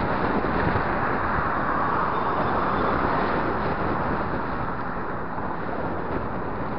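Steady rush of wind on the microphone of a camera riding on a moving road bicycle, mixed with the road noise of cars driving in the lanes alongside.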